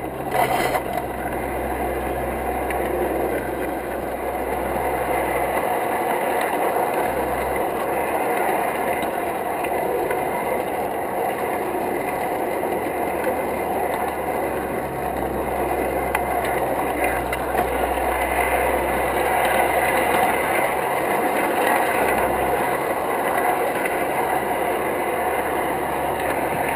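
Lionel G-scale model steam train running along its track, heard close up from a car the locomotive pushes: a steady rolling clatter of wheels on rails with motor hum, and a low hum that drops out briefly a couple of times.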